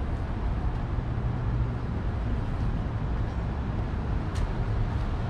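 Street ambience: a steady low rumble of car traffic on the road alongside, with a faint click about four seconds in.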